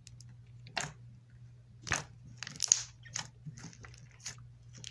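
Thick, glossy glitter slime squeezed and pressed between the hands for ASMR, giving irregular sharp crackling clicks and pops, about eight of them, over a faint steady hum.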